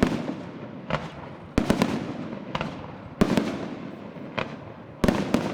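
Aerial firework shells bursting in a steady run of sharp bangs, about one a second, some coming two or three close together, each followed by a rolling echo that dies away.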